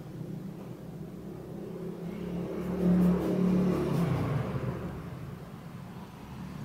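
A motor vehicle's engine passing by, its hum swelling to its loudest about three seconds in and then fading away.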